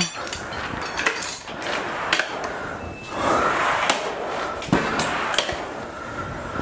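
Scattered metal clicks and knocks with scraping in between: hand tools and steel parts handled while a torsion spring is being forced into a mower's drive handle assembly.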